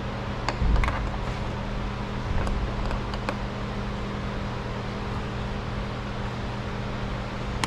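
A few light plastic clicks and taps from a car's bumper clips being pried loose with a flathead screwdriver, over a steady mechanical hum.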